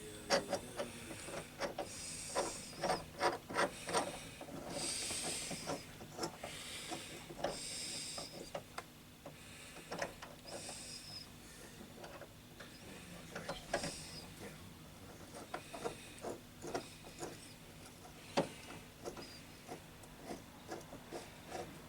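Metal tool clicks, knocks and short scraping as a puller is fitted and adjusted to grip a jammed tap handle, irregular and with no steady rhythm.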